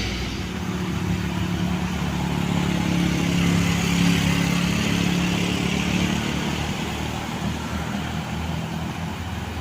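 A passing bus's diesel engine pulling steadily, swelling to its loudest about four seconds in and then slowly fading away.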